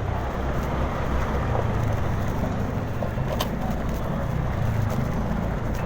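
Steady engine and road rumble of a Honda Genio scooter being ridden in traffic, with wind on the microphone and a brief click about three and a half seconds in.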